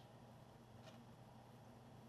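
Near silence: a steady low hum of room tone, with two faint small clicks, one at the start and another about a second in.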